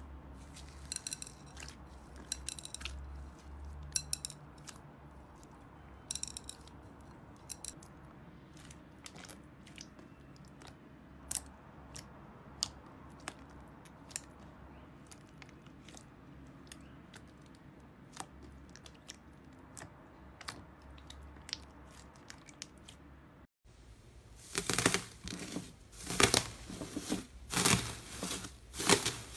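Slime being squeezed and pressed by hand: scattered sharp clicks and pops from trapped air, then after a brief cut near three-quarters of the way through, louder and denser crackling pops.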